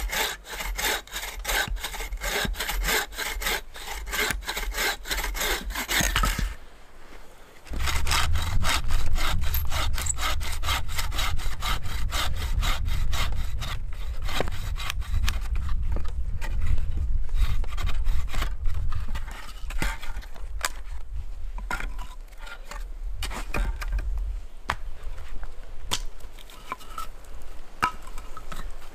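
Wooden frame bow saw cutting through a small log in quick, even back-and-forth strokes. The sawing breaks off briefly about six seconds in, starts again, and stops about two-thirds of the way through. Scattered sharp clicks and knocks follow.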